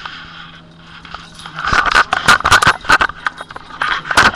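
Handling noise: a quick run of loud knocks, clicks and scrapes as the webcam is grabbed and moved, starting about a second and a half in.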